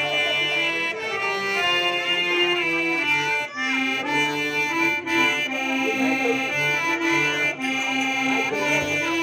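Harmonium playing a bhajan melody in held notes, stepping from one pitch to the next.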